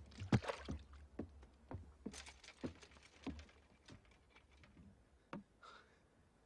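Irregular hollow knocks and creaks from a wooden sailboat's deck and rigging as a man clambers forward onto the bow, about two a second. The loudest come near the start and they grow fainter and sparser toward the end.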